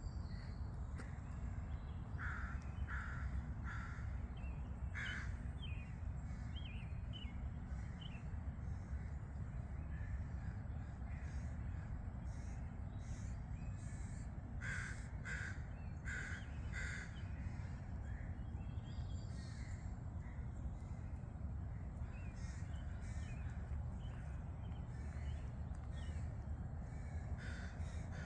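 Crows cawing in runs of short caws, three or four at a time, about 2 seconds in and again about 15 seconds in, with a single caw near the end. A steady low rumble of surf lies underneath, with fainter chirps of smaller birds.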